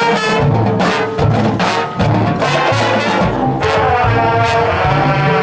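High school marching band playing its field show: brass with trombones and trumpets holding loud sustained chords over a drumline.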